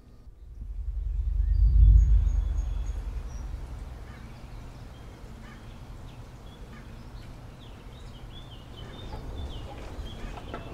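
Outdoor ambience with small birds chirping now and then, under a low rumble that swells about two seconds in and then fades away.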